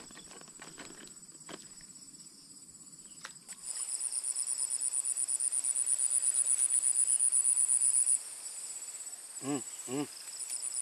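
Insects trilling: a high, rapidly pulsing trill starts about three and a half seconds in and cuts off suddenly about eight seconds in, over a steady high insect drone. A few faint clicks come early, and two short pitched calls come near the end.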